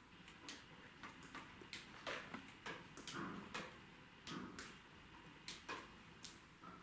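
Faint footsteps on a floor littered with paper and debris: irregular soft clicks and ticks, with brief rustling and crunching of paper underfoot around the middle.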